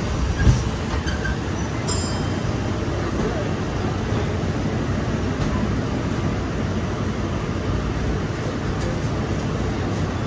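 Steady rumble of a vintage-style streetcar heard from inside the car, with one thump about half a second in.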